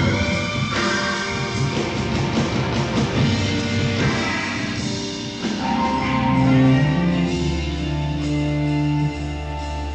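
Rock band playing live, with electric guitar, bass and drums: a dense passage with cymbal wash that gives way to long held notes about six seconds in.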